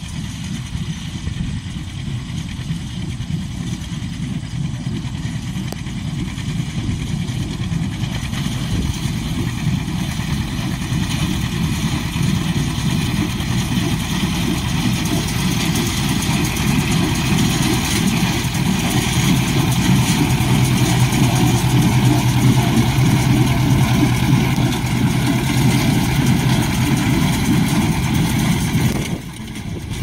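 An engine running steadily, growing louder through the middle and dipping briefly just before the end.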